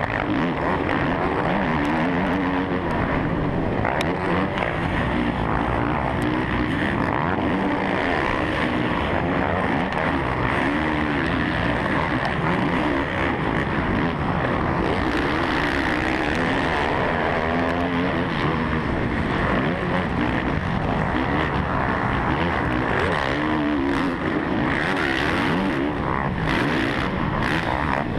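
Suzuki RM-Z450 motocross bike's four-stroke single-cylinder engine at race pace, revving up and down again and again through gear changes and the throttle.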